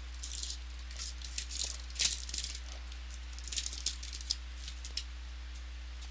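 Trading cards and their packaging being handled, making irregular light clicks and rustles, with a sharper snap about two seconds in.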